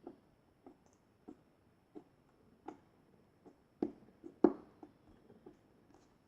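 Homemade squishy slime being squished by hand: a string of short, wet squelching pops about every half second, with two louder ones about four seconds in.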